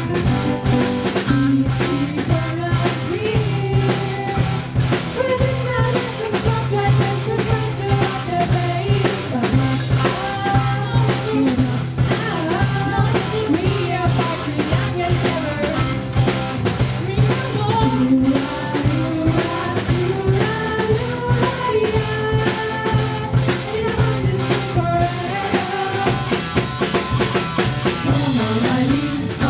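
A live rock band playing: drum kit, electric and acoustic guitars and bass, with singing.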